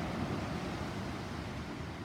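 Thunder rumbling in a low, even roll that slowly fades away.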